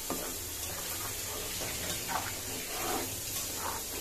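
Thick paneer masala gravy bubbling in a kadai while a steel spatula stirs it: a steady hiss with a few soft wet plops and scrapes.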